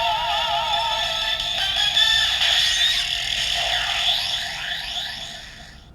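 Kamen Rider Ex-Aid Gashat toy cartridge playing its electronic music and sound effects through its small built-in speaker: warbling tones at first, then sliding, swooping effects that fade out near the end.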